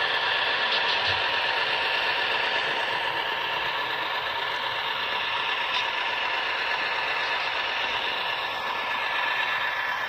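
Model train running past close by: the steady mechanical whir and clatter of its diesel locomotives and loaded freight cars rolling along the track.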